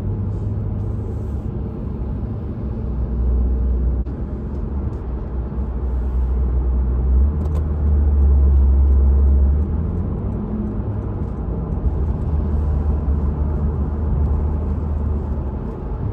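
Steady low rumble of a car's engine and tyres, heard from inside the cabin while driving on a wet freeway. It grows louder for a few seconds around the middle, then eases back.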